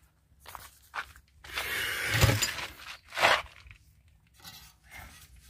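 Hand tools being worked on engine metal: a few short scrapes, the longest about a second long around the middle, with a sharp knock partway through it.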